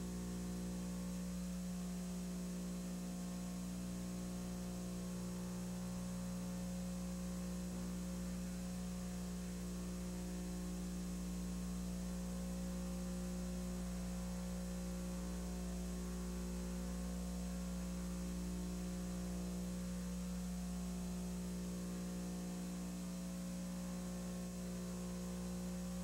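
Steady electrical mains hum: a low, constant buzz with many overtones and no other sound over it.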